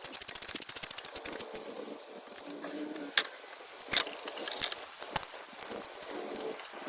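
Metal hand tools working on engine parts: a run of rapid clicks in the first second and a half, then a few separate sharp metallic clinks, the loudest about three seconds in.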